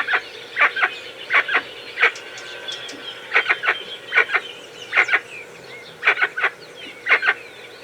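Jacu, a guan, calling in a run of short, sharp calls, about two a second, some in quick pairs.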